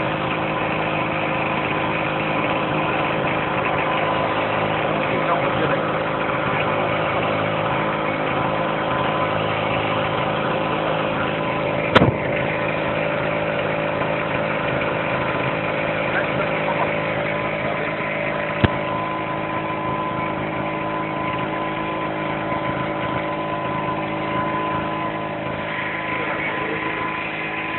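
Small portable generator engine running steadily, fed HHO gas through a hose into its intake, with two brief sharp clicks in the middle.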